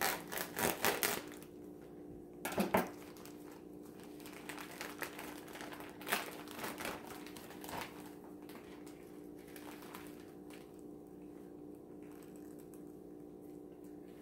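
Plastic bag of a tortilla pack rustling and crinkling as it is cut open and the tortillas are pulled out. It comes in bursts: a flurry at the start, another about two and a half seconds in, and more around six to eight seconds in, over a steady low hum.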